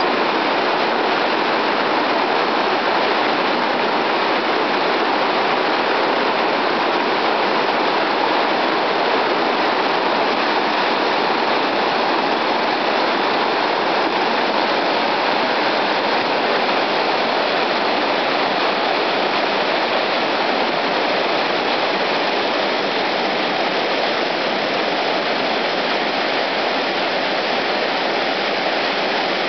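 Whitewater rapids rushing in a steady, unbroken roar of churning water.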